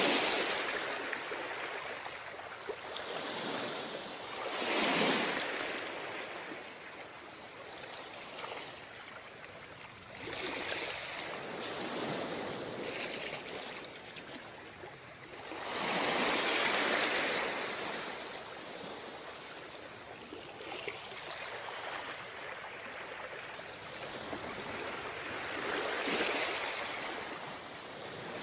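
Ocean waves breaking and washing up a beach, each surge swelling into a hiss and fading away, with the largest wave about sixteen seconds in.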